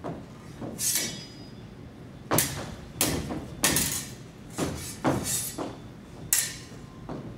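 Stage swords clashing in a duel: about eight sharp clashes and knocks at irregular intervals, a few ringing briefly.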